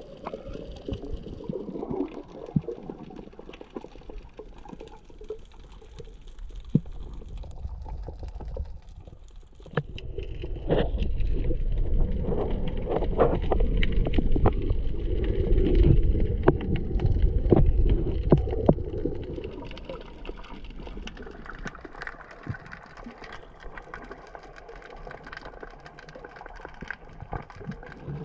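Underwater sound through an action camera's waterproof housing: muffled water movement and gurgling, with scattered sharp clicks. A louder stretch with a deep rumble comes in the middle, then it falls back to a fainter hiss.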